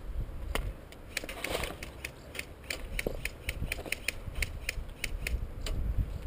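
Airsoft rifle mechanism clicking in an even run of short, sharp clicks, about three to four a second, starting about a second in.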